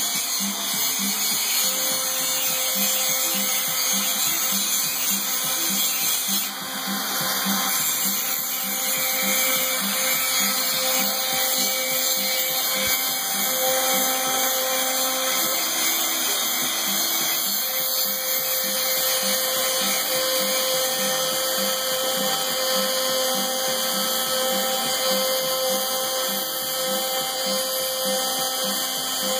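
CNC router spindle running steadily with a high whine while its 2 mm spiral bit cuts through 3 mm MDF, with a low pulsing about twice a second underneath.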